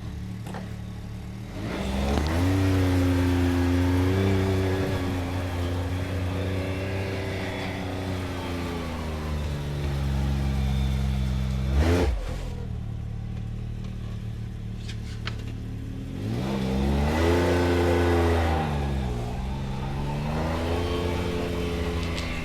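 Off-road vehicle engine revving up and holding while crawling, easing off and picking up again twice. A single sharp knock comes about halfway through.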